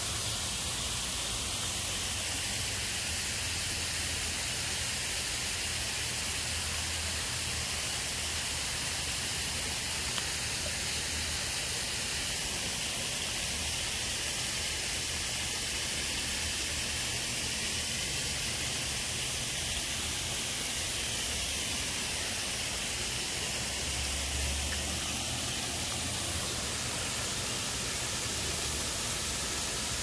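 Steady rushing of water from a stone waterfall cascading over rock ledges into a pond.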